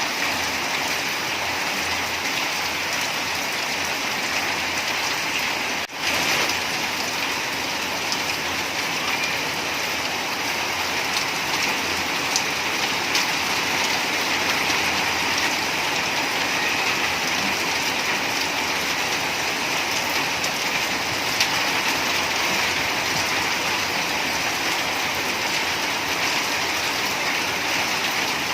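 Steady rain falling, an even hiss that briefly drops out about six seconds in.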